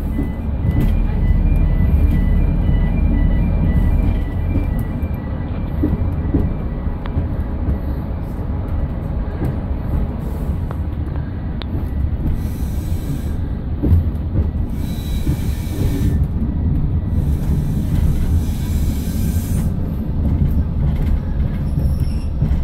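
Class 115 diesel-mechanical multiple unit running slowly, heard from the driver's cab: a steady low engine and running rumble with scattered clicks over rail joints and pointwork. A faint repeated beeping in the first few seconds, and several short bursts of higher hiss in the second half.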